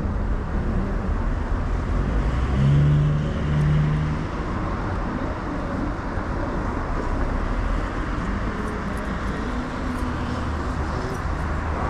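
Steady road traffic noise, with one vehicle passing louder, its engine hum rising and fading, about three seconds in.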